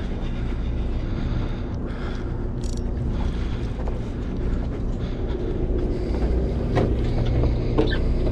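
The sportfishing boat's machinery running with a steady low hum, with wind and water noise over it. Two short clicks sound near the end.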